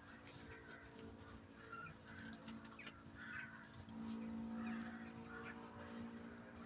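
Faint outdoor ambience of birds calling, short hoarse calls repeating every half second or so, over a low steady hum that swells about four seconds in.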